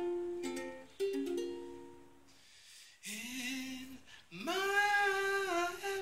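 Ukulele notes picked and left ringing, fading away over the first two seconds. A man's voice then comes in about three seconds in with a short sung phrase, and slides up into a long held note.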